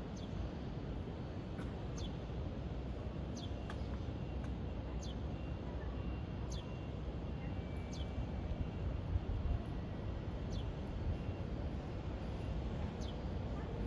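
Steady low city rumble, with a bird repeating a short, high chirp that slides downward about every one and a half seconds.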